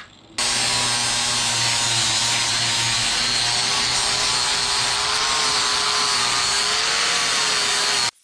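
Angle grinder running and grinding the aluminum transom reinforcement plate: a steady motor whine over abrasive grinding noise, its pitch wavering slightly under load. It starts abruptly just after the start and cuts off abruptly near the end.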